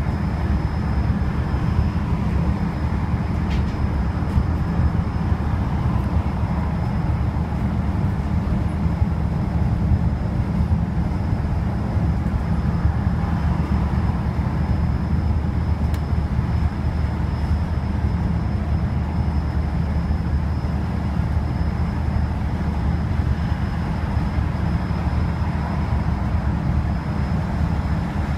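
Wright StreetDeck double-decker bus cruising at motorway speed, heard from inside the cabin: a steady low drone of engine and road noise, with a faint steady high whine above it.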